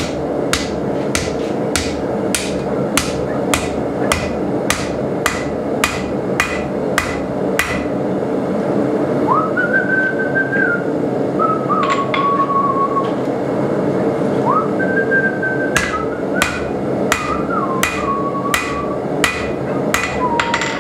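Hand hammer striking red-hot coil-spring steel on an anvil, about two ringing blows a second, over a steady background roar. In a pause midway the blows stop and a few whistled notes are heard, then the hammering resumes.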